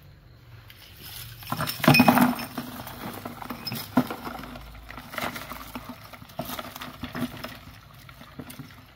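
Irregular clicks and clattering, with a louder burst of clatter about two seconds in and single sharp clicks scattered after it.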